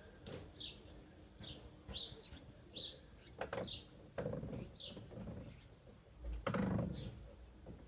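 A small bird chirping over and over, short high chirps about two a second. Several louder knocks and rustles of handling come through, the loudest about six and a half seconds in.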